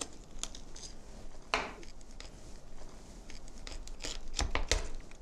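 Chef's knife cutting through a raw chicken's rib bones alongside the spine to take off the backbone: scattered crunches and snaps of bone and cartilage, with a cluster of sharper cracks near the end.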